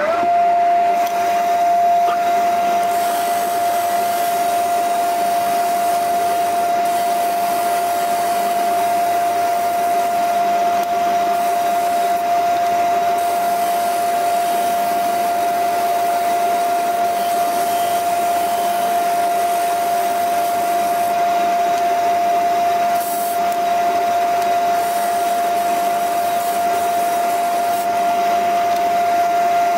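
Stationary disc sander running at full speed with a steady high whine over a rushing hiss, while a small wooden piece is pressed against the spinning sanding disc.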